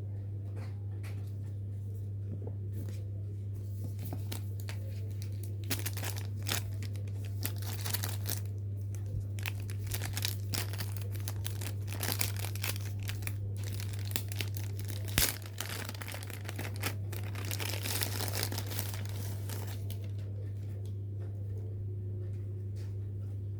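Paper and plastic packaging being handled and unwrapped: irregular crinkling and rustling, with a sharp snap about fifteen seconds in. A steady low hum runs underneath.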